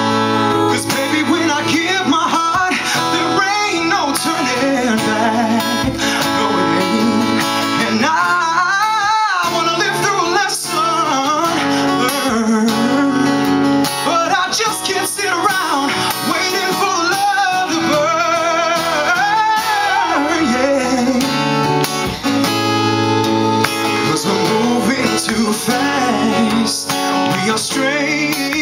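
Acoustic guitar strummed with a voice singing over it, the voice holding long wavering notes through the middle.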